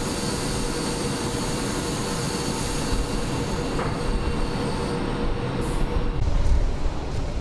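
Steady hum and hiss of factory plant machinery with several constant whining tones, the higher ones dropping out about five seconds in. Low wind rumble on the microphone swells near the end.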